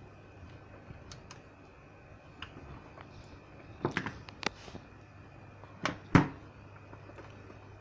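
Scattered sharp clicks and knocks as a set-top box circuit board is handled for testing after an audio IC repair, the loudest about four and six seconds in, over a faint steady hum.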